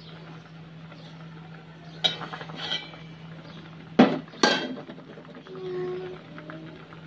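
Aluminium lid being lifted off a steel pot: metal scraping and clinking about two seconds in, then two sharp clanks about half a second apart, over a steady low hum.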